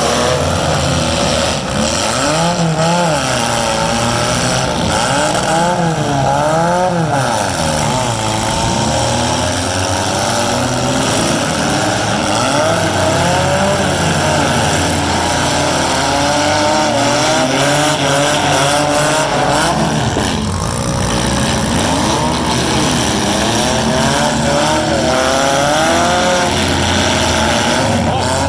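Several four-cylinder demolition derby cars' engines revving at once. Many engine notes rise and fall over each other in a constant loud din.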